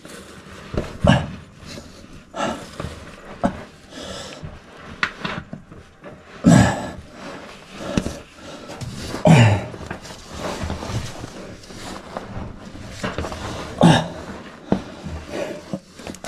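A caver wedged in a tight rock squeeze, breathing hard and grunting with effort as he strains against the passage: about half a dozen short grunts or exhalations several seconds apart, several falling in pitch, with scuffing against the rock in between.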